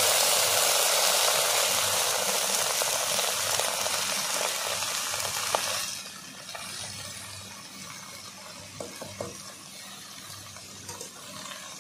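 Wet chopped red amaranth leaves hitting hot mustard oil in a karahi: loud, steady sizzling that drops off sharply about six seconds in. Softer frying follows, with a few light knocks of the spatula against the pan as the leaves are stirred.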